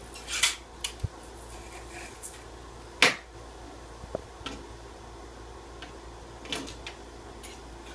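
Scattered handling sounds: a few brief scrapes and clicks, with one sharp knock about three seconds in.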